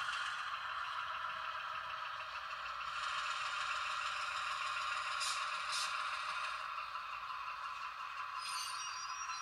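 HO scale model diesel locomotive running slowly along the track, a steady mechanical drone. Two brief high hisses come about five and a half seconds in.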